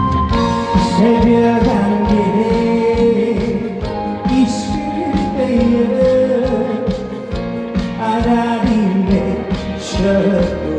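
A singer performs a trot song live, the voice moving between held and gliding notes over a band accompaniment with a steady beat.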